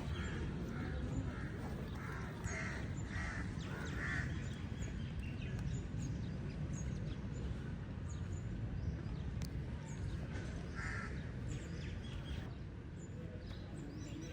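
Birds calling outdoors: several short calls in a cluster about two to four seconds in and another near eleven seconds, over a steady low rumble of background noise.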